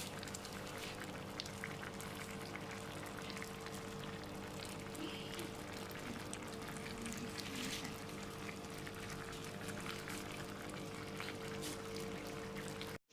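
Food cooking in a pan on the stove: a steady hiss with many fine crackles, over a low steady hum. It cuts off suddenly near the end.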